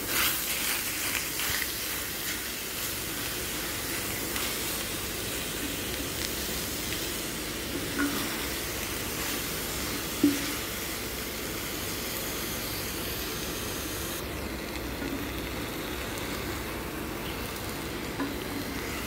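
Minced chicken sizzling in a hot oiled pan with onion and garlic, stirred and pushed with a wooden spatula. A few scrapes and knocks of the spatula on the pan; the sharpest comes about ten seconds in.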